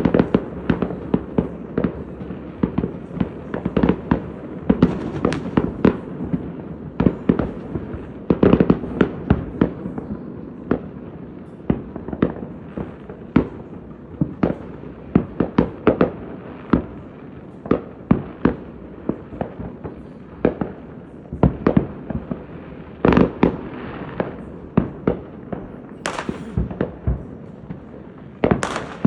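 Fireworks going off in a continuous barrage: sharp bangs and pops, several a second and overlapping, with no pause. Near the end come two brief high hissing streaks among the bangs.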